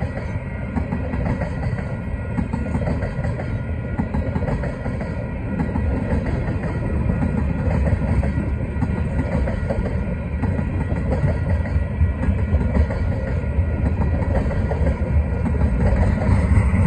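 Freight train tank cars rolling past at speed: a steady, heavy rumble of steel wheels on the rails with clickety-clack, growing a little louder near the end.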